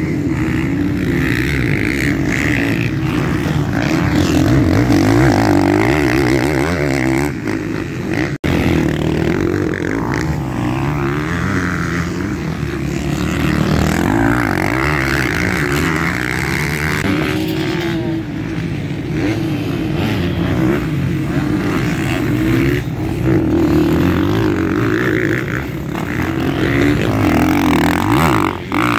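Off-road dirt bike engines revving and accelerating through the gears, pitch rising and falling, with a brief abrupt drop-out about a third of the way through.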